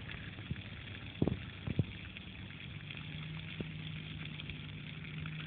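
Splash pad fountain jets spraying water from the ground, a steady hiss, with two knocks about a second in and a steady low hum joining in the second half.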